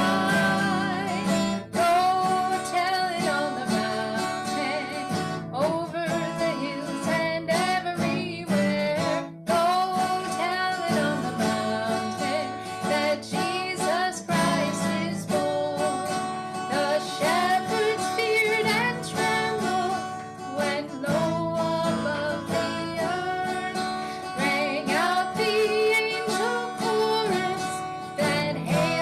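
A woman singing with acoustic guitar strumming behind her.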